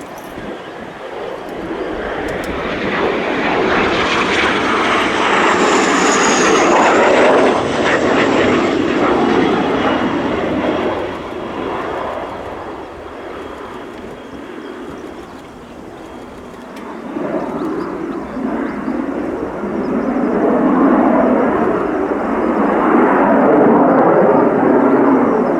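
Military jet aircraft flying past during touch-and-go circuits: a jet roar swells to a peak about a quarter of the way in, with a high turbine whine that drops in pitch as it passes, eases off, then a second loud jet roar builds toward the end.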